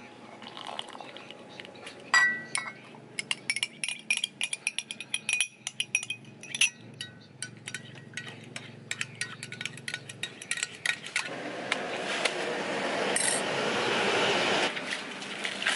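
Metal spoon clinking rapidly against the sides of a glass measuring jug while stirring coffee, in quick irregular clicks for several seconds. Near the end the clinking gives way to a steady rushing noise lasting about three seconds.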